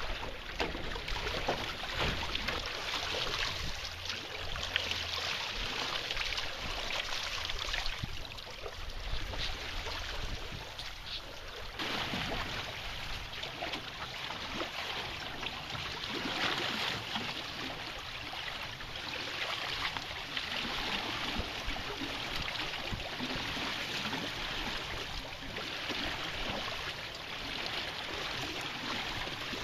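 Water rushing and splashing along the hull of a wooden sailing canoe moving through choppy water: a steady wash of noise that shifts abruptly about twelve seconds in.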